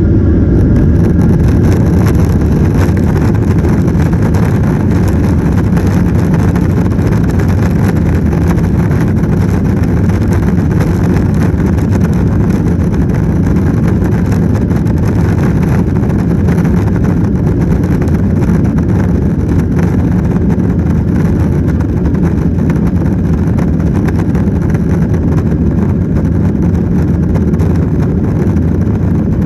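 Steady engine and airflow noise heard inside the cabin of a Boeing 737-900ER, its CFM56-7B turbofans running at high power. The sound is an even, loud, low-pitched rush that eases off only slightly over the stretch.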